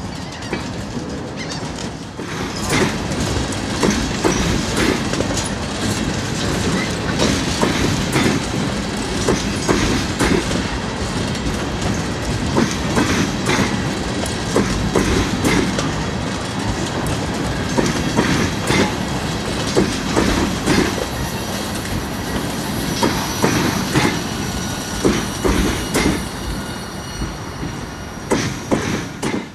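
Loaded-less Tropicana juice train of insulated boxcars rolling past close by: a steady rumble of steel wheels on rail with repeated clickety-clack as the trucks cross rail joints, and faint high-pitched wheel squeal. The sound dies away as the end of the train passes at the close.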